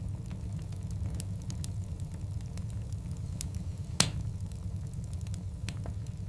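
Wood fire of large logs burning: a steady low rumble of flames with scattered sharp crackles, and one loud pop about four seconds in.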